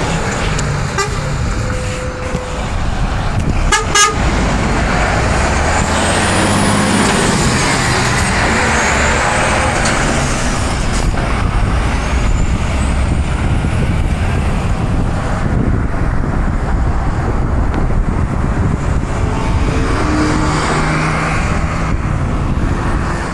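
A Scania semi-truck hauling a shipping container drives past on a highway. About four seconds in its horn gives two short toots, then its engine and tyre noise builds and fades as it goes by, with a faint whine rising and falling. Near the end a car passes.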